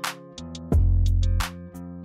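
Background music with drum hits and deep bass.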